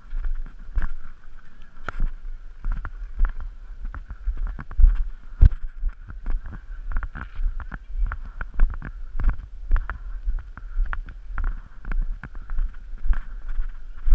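Paintball marker and hopper jostled while carried at a walk: irregular dull thumps and sharper knocks, several a second, over a faint steady hiss.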